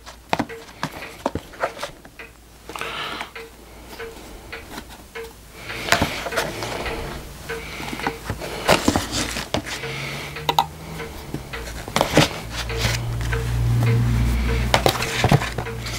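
Petrobond oil-bonded moulding sand being spooned into a moulding flask: irregular scrapes of a spoon, clicks, and soft patters of sand dropping in. The scraping and pattering get busier about six seconds in, and a low hum swells for a few seconds near the end.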